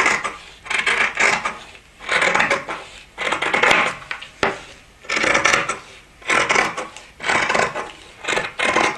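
Dressmaking shears cutting through fabric laid on a table: a series of about nine snips, roughly one a second, each ending as the blades close.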